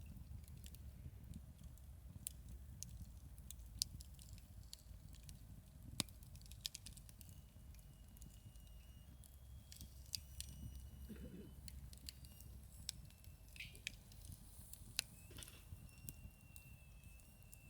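Wood fire crackling faintly, with scattered sharp pops over a steady low rumble. A few thin, high, steady whistling tones come in during the second half.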